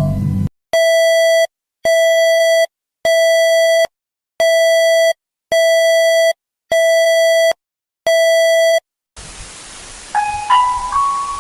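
An electronic alert tone beeping seven times, each beep about three-quarters of a second long at one steady pitch, with short even gaps between them. Near the end a faint hiss comes in and a chiming melody of rising notes begins.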